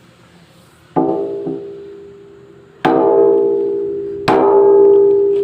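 Hammer blows on the steel of an excavator bucket's pin joint during bushing and pin fitting: three strikes, each leaving a long metallic ring that fades slowly.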